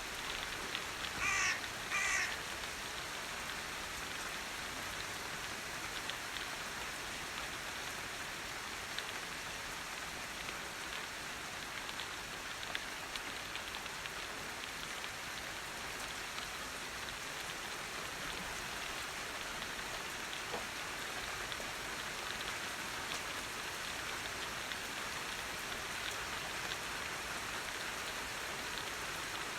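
Steady rain falling, with two short harsh bird calls, like crow caws, about a second and two seconds in.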